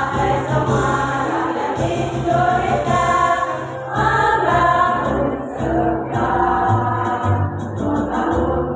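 Women's choir singing a song with musical accompaniment, sustained notes moving from one to the next over a steady low bass line.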